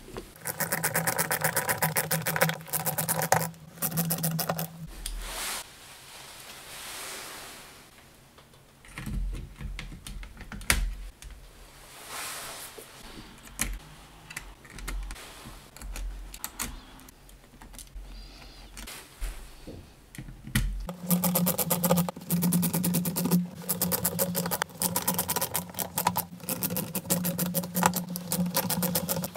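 Small electric precision screwdriver backing out tiny laptop screws: a steady motor hum with rapid clicking, in one spell at the start and another from about two-thirds of the way in. Between them come quieter scattered knocks and handling of parts.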